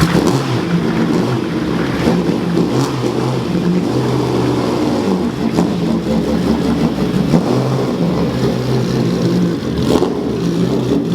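Classic sports or racing car engine running and revving unevenly as the car drives slowly past.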